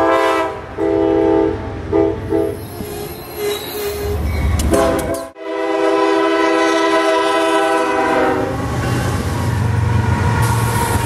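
Diesel locomotive air horns: a string of short blasts, then after a sudden cut one long blast. Near the end comes the low rumble of a locomotive passing close.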